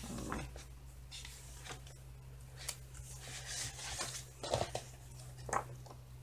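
Pages of a large hardcover book being flipped through: a string of soft paper rustles and flicks, the sharpest two in the second half, over a faint steady low hum.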